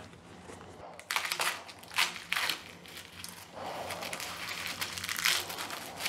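Termite-eaten wooden chair rail crunching and crumbling as a gloved hand crushes it, in irregular crackles starting about a second in; the wood is hollowed and rotten from termite damage.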